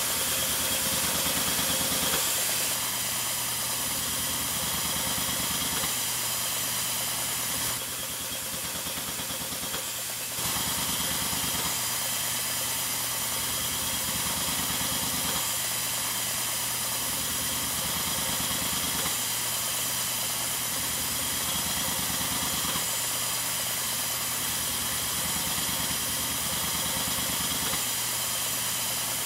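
Percussionaire VDR-4 high-frequency percussive ventilator driving a Phasitron: a rapid, even puttering of gas pulses over a steady hiss of airflow. A heavier, lower pulsing switches on and off every couple of seconds as the added tidal-volume (convective) breaths cycle in and out of the percussion.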